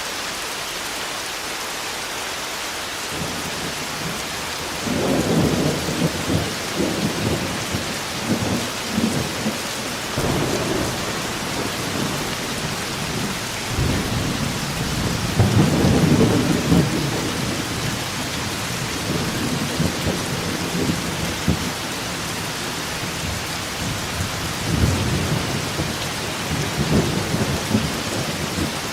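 Steady heavy rain with rolling thunder: low rumbles of thunder rise and fade several times, the strongest about halfway through, over the constant hiss of the rain.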